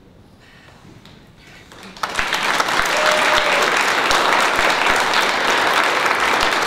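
Audience applause breaking out suddenly about two seconds in after a quiet start, then continuing steadily.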